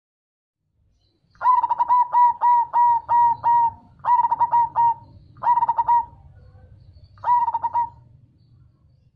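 Perkutut cemani (black zebra dove) singing its deep, bass-toned cooing song. It gives four phrases of quick repeated coos, the first the longest and the last, near the end, the shortest.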